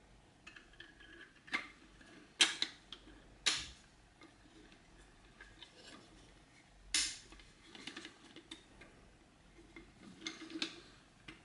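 Hard 3D-printed plastic toy parts clicking and knocking as they are handled and fitted together by hand: a few sharp clicks, the loudest about two and a half, three and a half and seven seconds in, among quieter small rattles.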